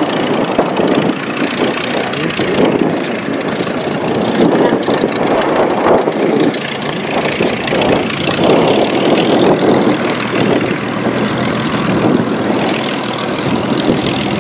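V12 piston engine and propeller of a taxiing Second World War fighter, running steadily at low power with an uneven, fluttering rumble.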